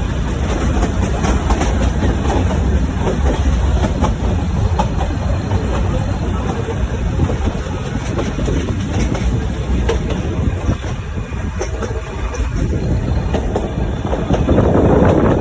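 Metre-gauge Nilgiri Mountain Railway toy train running: a steady rumble with scattered clicks of the wheels over the rail joints, swelling louder near the end.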